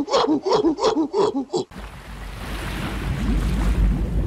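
A chimpanzee giving a fast run of rhythmic hooting calls, about four a second, which cut off about a second and a half in. Then a steady rush of water with a low bubbling underneath, growing slightly louder.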